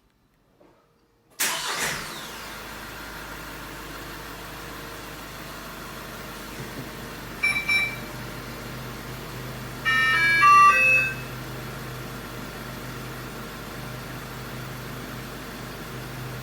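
Kia Bongo III truck engine started by remote start: a brief crank about a second and a half in, catching and settling into a steady idle. Over the idle, a short electronic beep near the middle and then a quick, louder run of beeps of changing pitch.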